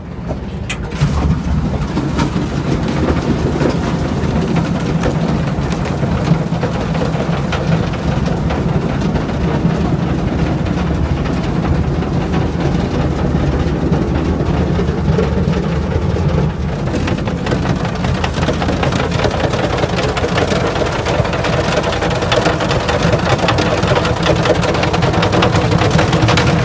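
A tractor-driven mixer feeder wagon running: a steady low engine drone under a continuous rattle and clatter from the mixing drive.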